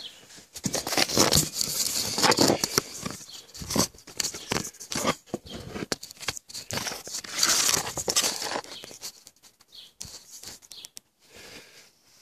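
Microphone handling noise: a phone rubbing, scraping and crackling as it is picked up and repositioned, irregular and loud for most of the time and dying away near the end.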